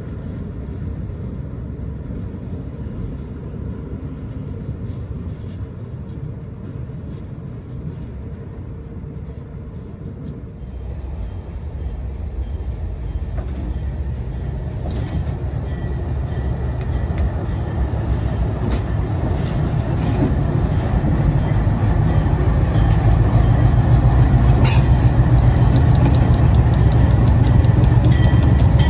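Diesel locomotive approaching, its low engine drone growing steadily louder, with sharp clicks and clatter joining in during the second half.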